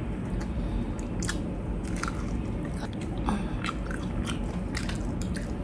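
Close-up eating sounds: biting into and chewing crispy fried chicken, a string of irregular sharp crunches and chewing noises.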